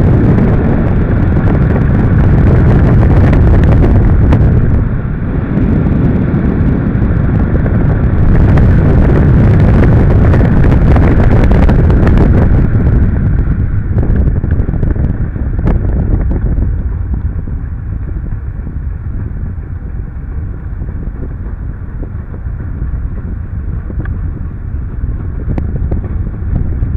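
Wind rushing over a hang glider's wing-mounted camera microphone in flight, a loud, deep rumble of airflow. It eases a little about halfway through and builds again near the end.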